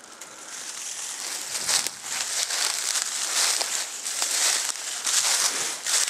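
Dry fallen leaves rustling and crackling, in uneven surges that swell and fade.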